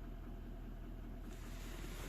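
Toyota 1VD-FTV twin-turbo V8 diesel idling steadily when fully warm, with a fine even low beat of firing. This is the state in which the owner hears an unexplained knock come in. About two-thirds through, a faint hiss rises over it.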